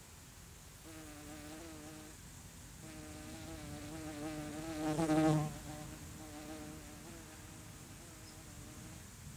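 A flying insect buzzing around the microphone, its wavering wingbeat drone starting about a second in, breaking off briefly, then swelling to its loudest about halfway as it passes close, fading again and stopping near the end.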